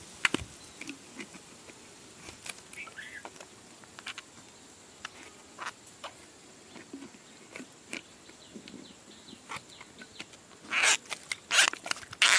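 Plastic bottle being turned in the hands as its cap is screwed on: scattered small clicks and crackles of the plastic, with a few louder crinkles near the end.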